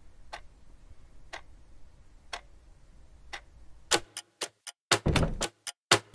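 Wristwatch ticking once a second, four ticks. Near the end comes a quick run of louder sharp clicks and knocks.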